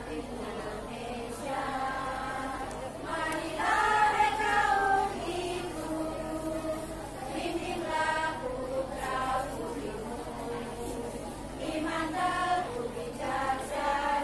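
Women's choir singing together in sung phrases, the voices loudest about four seconds in.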